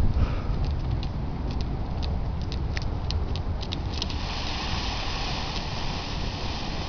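Wind rumbling on the camera microphone, with scattered sharp clicks through the first four seconds; about four seconds in a steady hiss starts and holds.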